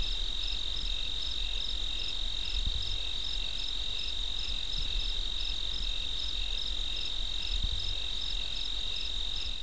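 Crickets chirping: a continuous high trill with a pulsing beat about two to three times a second, holding steady throughout.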